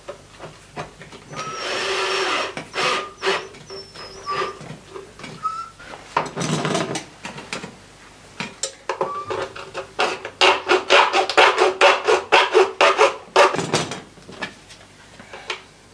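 A cordless drill drives a long screw through a plastic bottle's neck into a bicycle frame, in short bursts with squeaks of the plastic. Later comes a fast run of scraping and rubbing on plastic, the loudest part, between about ten and thirteen seconds in.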